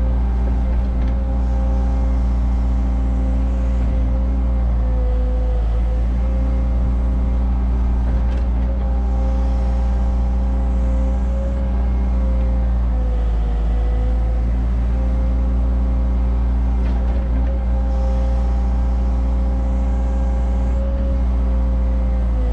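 Cat 306 mini excavator's diesel engine running steadily while the machine digs a trench, with a whine in its note that wavers and dips in pitch now and then as the arm works, and a few faint knocks.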